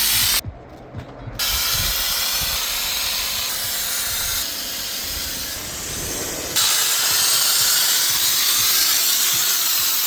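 Compressed-air spray gun hissing steadily as it sprays cork coating onto a wall. The hiss drops back for about a second near the start and jumps in level at a few abrupt cuts.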